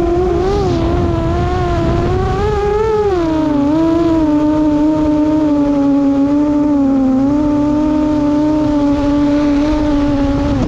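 An FPV quadcopter's electric motors and propellers whine, heard from its onboard GoPro with wind rushing over the camera. The pitch wavers with the throttle, dips about three seconds in, then holds steady and a little lower before stopping abruptly at the end.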